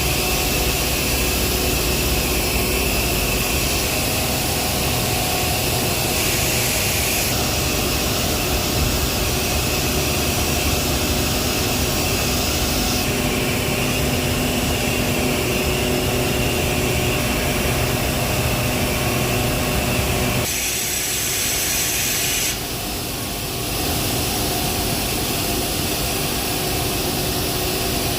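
Heavy industrial machinery running with a steady loud mechanical noise and several humming tones. The sound shifts abruptly a few times, about six seconds in, about thirteen seconds in and twice more after about twenty seconds.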